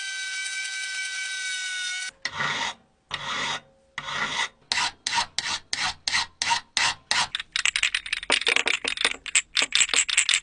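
About two seconds of steady whirring with a high ringing tone, then repeated rasping scrapes, slow at first and quickening to about five a second near the end.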